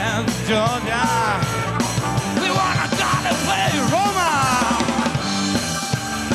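Live blues-rock band playing electric guitar, bass guitar, keyboard and drum kit together at full volume, with a lead line sliding up and down in pitch over a steady bass pattern.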